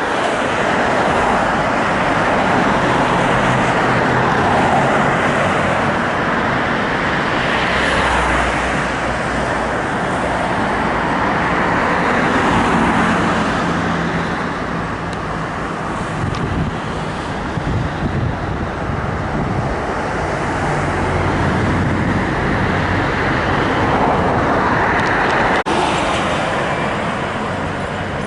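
Motor vehicle engine and road noise, steady throughout, with the low engine note shifting up and down several times.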